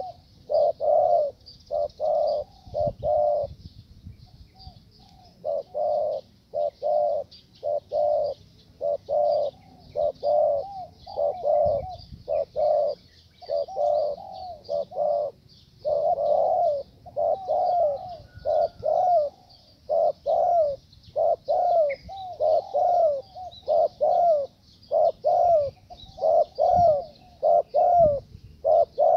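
Male spotted doves cooing over and over, each phrase a short run of a few coos with brief gaps between, the territorial calling drawn out by a decoy bird. A steady faint high hiss sits behind the calls.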